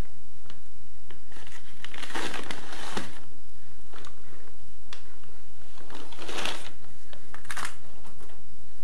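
A sack of dry block-laying adhesive powder rustling and crinkling while powder is scooped out with a small trowel and tipped into a metal scale bowl, with small scrapes and taps. There are two longer bursts of rustling and a short one near the end.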